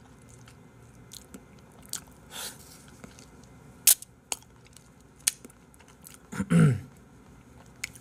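A man biting and chewing an ice cream bar close to the microphone: scattered soft clicks and smacks of the mouth, with one brief vocal sound about six and a half seconds in.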